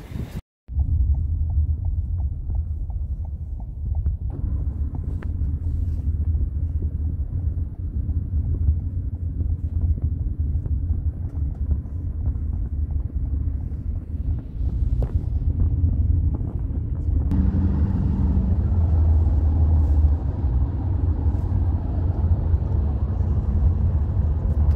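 Steady low rumble of a car riding on the road, heard from inside the cabin, with more road and wind hiss coming in from about two-thirds of the way through.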